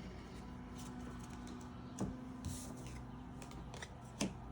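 Handling of trading card packs and cards: a few faint clicks and light rustles over a steady low hum.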